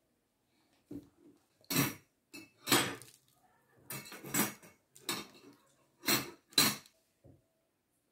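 Salt and then pepper being shaken from a glass shaker over a pizza: about ten short, sharp shakes of the grains inside the shaker, spaced irregularly about half a second to a second apart.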